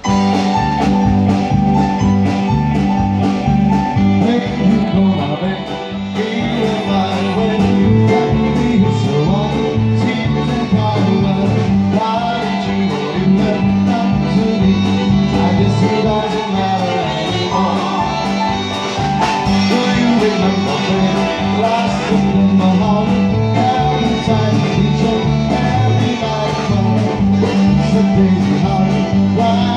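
Live band playing an upbeat 1950s-style rock and roll number: electric guitar and piano over a quick, even bass line stepping from note to note.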